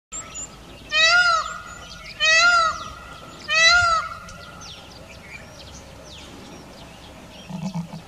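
Indian peafowl giving three loud, wailing calls, each about half a second long with a rise-and-fall pitch, about a second and a quarter apart. After them come faint short chirps of small birds.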